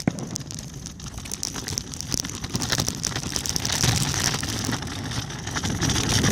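Fireworks crackling: a dense patter of small pops, like rain, over low booms that swell about four seconds in and again near the end.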